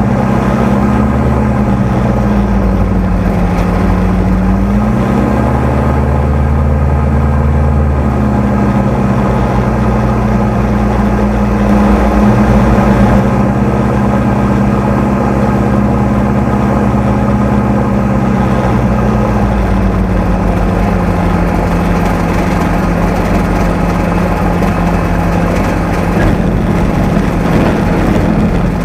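A Streak Shadow microlight's engine and pusher propeller, heard from the open cockpit, running steadily on the approach to land. The engine note wavers up and down over the first several seconds and settles slightly lower about twenty seconds in.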